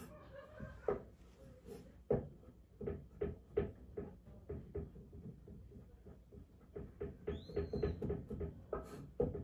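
Kitchen knife chopping carrot on a cutting board: a run of irregular knocks, about two or three a second, coming faster in the last couple of seconds.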